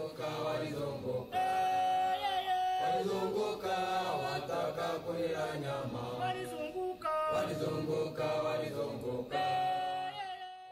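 Choir singing a chant-like song in harmony, voices holding long notes with brief breaks between phrases.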